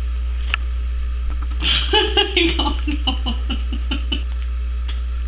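A woman's stifled laughter, muffled behind her hand, comes in short choppy bursts starting about two seconds in, over a steady low hum.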